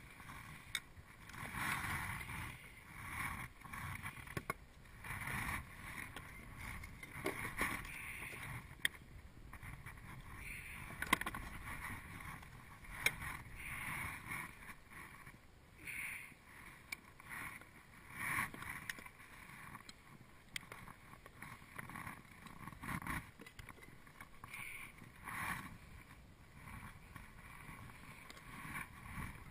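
Gear being handled in and around a kayak's round deck hatch: irregular swishing and rustling, with a few sharp clicks and knocks near the middle.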